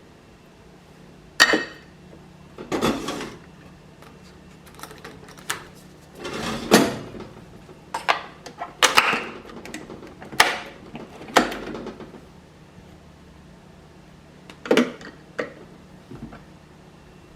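Kitchenware being handled while making coffee: mugs, utensils and cupboard or drawer doors knocked and set down in about seven sharp clinks and knocks, over a faint steady hum.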